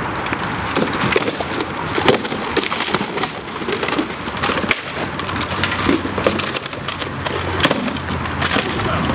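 Armoured combat practice: rattan swords striking wooden shields and armour, with shields clashing, in a rapid, irregular run of hard wooden knocks.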